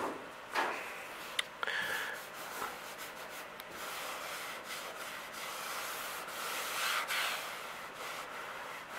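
A hand stroking a paper towel over sanded body filler: a soft, dry rubbing that swells and fades, with a few light ticks in the first two seconds. This is the filler being felt for low spots and hard edges that need another coat.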